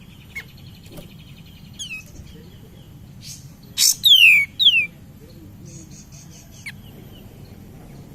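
A kapas tembak songbird calling in short phrases: a fast fine trill at first, then loud whistled notes sliding downward about four seconds in, and a brief buzzy rattle near the end.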